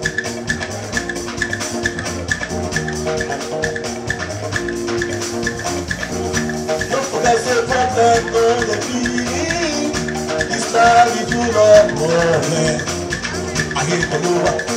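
Live band music: electric guitars, bass and drums playing an upbeat dance groove, with sustained chords, sliding melodic lines and a steady rattling percussion pattern.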